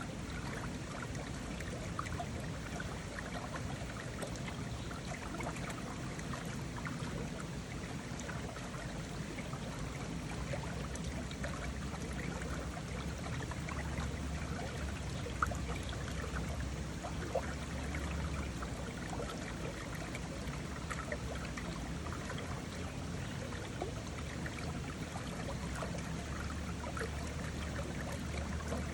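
Mountain river rushing steadily over rocks, a continuous even rush with small splashes.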